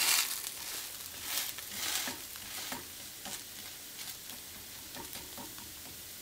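A dosa sizzling in oil on a hot non-stick tawa. A wooden spatula scrapes and presses across it several times in the first three seconds or so, and after that mostly the steady sizzle remains.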